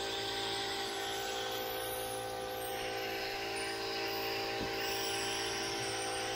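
Harbor Freight compressed-air paint spray gun hissing as it sprays, over the steady hum of a running motor, most likely the air compressor feeding it. The hiss eases off for a moment about halfway through, then comes back.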